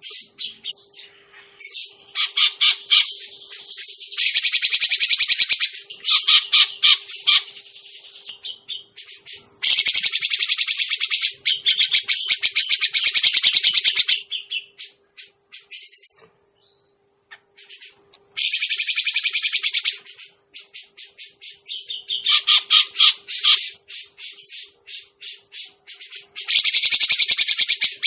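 Cucak jenggot (grey-cheeked bulbul) luring call: loud bursts of rapid, repeated high chattering notes, each burst lasting a few seconds, with short pauses between.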